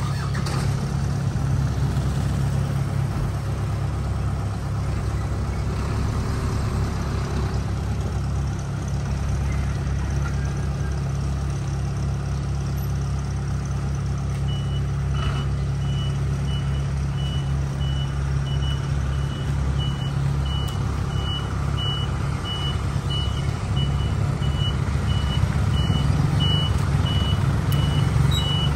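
Light flatbed truck's engine running as it reverses, its reversing beeper starting about halfway through with a regular series of short, high beeps.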